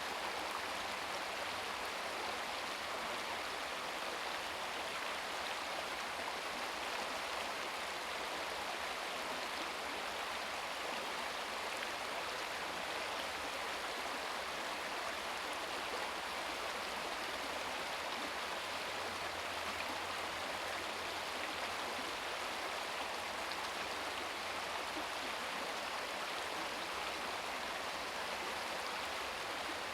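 Shallow brook babbling over rocks: a steady, even rush and trickle of flowing water.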